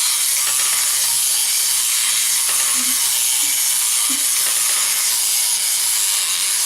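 Clockwork spring motor of a Hubba Bubba Cluckers wind-up toy chicken whirring steadily as it runs.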